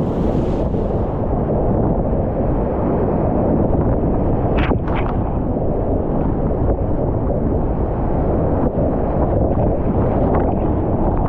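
Whitewater rapids on the South Yuba River at high water, about 3,000 cfs, rushing loudly and steadily around a kayak in the current, with a few brief splashes about five seconds in.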